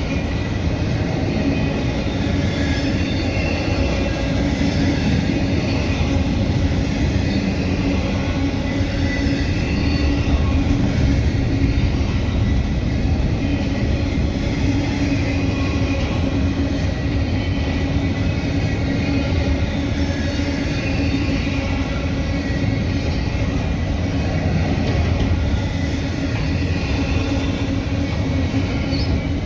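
A freight train rolling past on the CSX line, its cars making a steady, even rumble on the rails with a low hum underneath.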